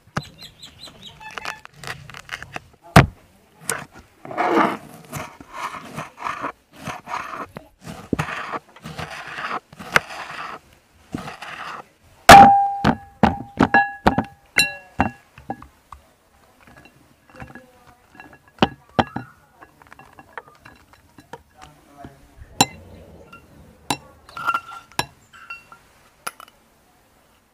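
Food-prep sounds: a knife chopping on a wooden cutting board in a quick run of strokes. About twelve seconds in comes a loud knock, then several ringing clinks against a glass bowl as raw chicken pieces are handled in it, followed by scattered softer knocks.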